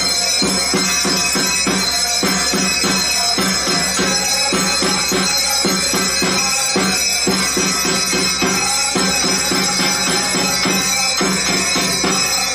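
Temple aarti music: a fast, even drum beat of about four strokes a second over a sustained droning tone.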